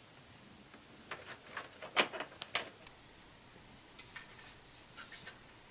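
Hands handling parts inside a desktop computer case: a run of light clicks and knocks about a second in, loudest near the two-second mark, then a few softer clicks near the end.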